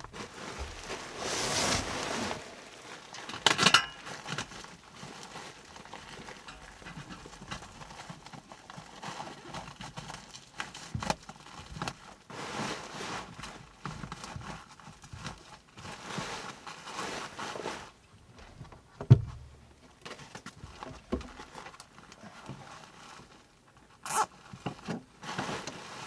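Rustling and crinkling of foil-jacketed flexible duct being handled and pushed onto a sheet-metal collar, in irregular bursts with a few knocks and one heavier thump about two-thirds of the way through.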